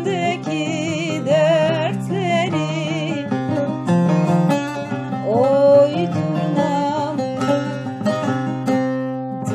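Kurdish folk song music: plucked strings under a wavering melody line that slides upward about halfway through.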